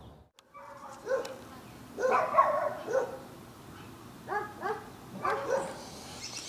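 Dogs barking repeatedly: about eight short barks in small clusters, some in quick pairs.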